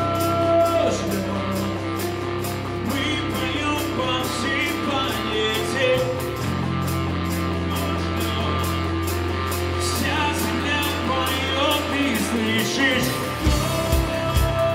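Live rock worship band playing: electric guitars over sustained bass notes and steady cymbal ticks, with a singing voice coming in twice. A kick drum begins thumping on the beat near the end.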